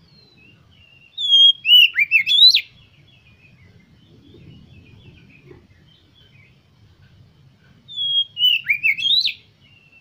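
Oriental magpie-robin singing: two short whistled phrases about six seconds apart, each with a few notes sliding down and then quick rising sweeps.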